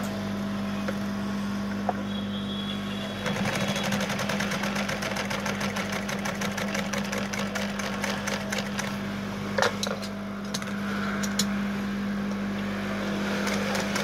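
Juki sewing machine running: a steady motor hum, and about three seconds in the needle starts stitching with a fast, even ticking that eases off around ten seconds in and picks up again near the end.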